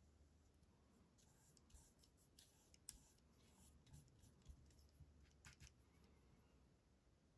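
Near silence, with a few faint scratchy strokes and light taps of a paintbrush working thick acrylic paint onto watercolor paper, mostly in the middle.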